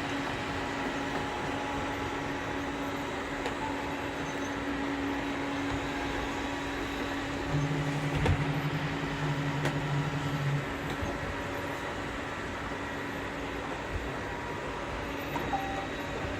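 Several robot vacuums running at once: a steady whirring hum with a few thin steady tones in it. A deeper hum joins for about three seconds around the middle.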